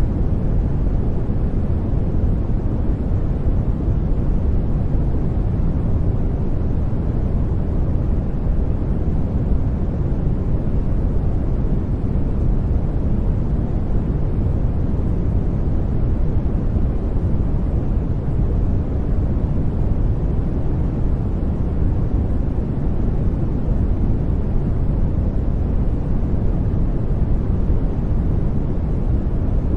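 Steady white-noise background track, an even rushing hiss weighted toward the bass with little treble, unchanging throughout.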